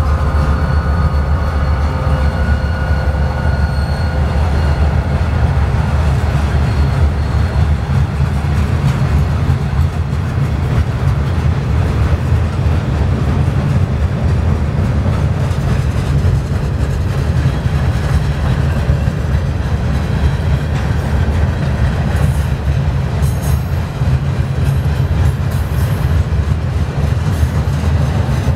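Freight train passing at close range, its steel wheels rolling on the rails with a steady, heavy rumble. A whine from the trailing diesel locomotive fades over the first several seconds. After that the boxcars and hoppers roll by with faint clicks and clanks.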